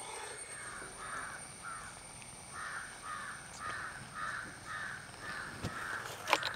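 Crows cawing in a rapid, regular series of harsh caws, about two a second, louder from about two and a half seconds in. A sharp knock comes near the end.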